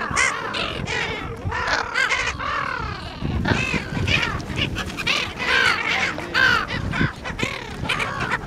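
A flock of brown-headed gulls calling: many harsh, arching squawks overlapping without a break.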